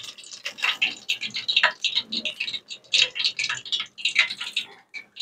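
Hot oil crackling and spitting around nems (spring rolls) deep-frying in a pot, in dense, irregular quick crackles.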